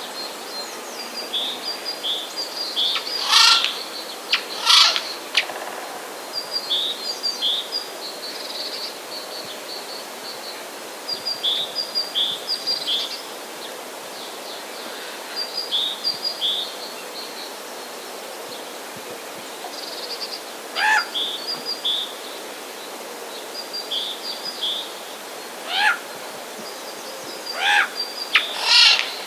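Eurasian jay giving loud, rasping screech calls, two close together a few seconds in, one around the middle and a cluster near the end, over runs of high, short chirping bird notes.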